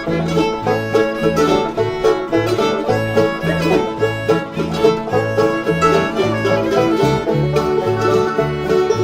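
Acoustic string band playing an instrumental break in a bluegrass style, with plucked strings and fiddle over a bass line that steps between notes in an even rhythm.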